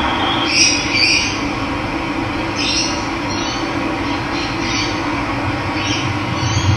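Steady rush of running water with a bird repeatedly giving short, high, chirping calls over it, about eight times.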